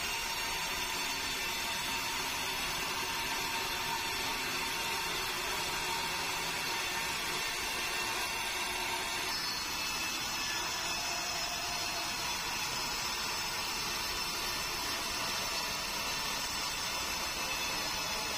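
Large log band sawmill running steadily, its blade sawing lengthwise through a meranti log as the carriage feeds it past: an even, unbroken noise.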